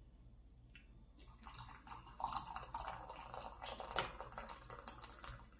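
Water poured from an enamel coffee pot into a glass measuring cup: a splashing, trickling pour that starts about a second in and stops near the end.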